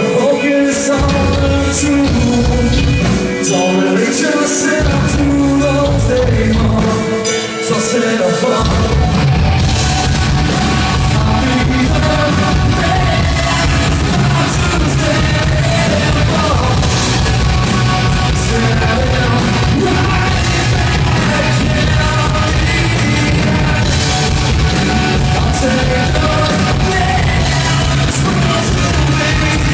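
Heavy rock band playing, with sung and shouted vocals. The bass and drums cut in and out during the first eight seconds or so, then the full band comes in heavily.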